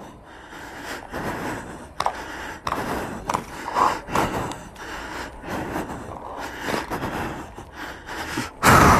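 Paintball markers firing in irregular single pops during a game, over a light rush of wind and handling on the phone's microphone. A loud rush of noise near the end.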